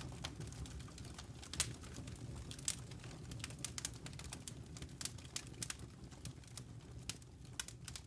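Wood fire burning, its logs crackling with many irregular sharp pops and snaps over a low steady rumble.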